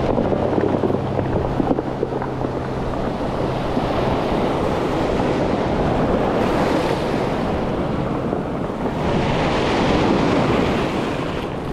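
Surf breaking and washing over a cobble beach, swelling twice as waves come in, with wind buffeting the microphone.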